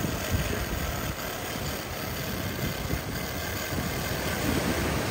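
Wind buffeting the microphone, a steady uneven rumble, over the hiss of ocean surf breaking on the beach.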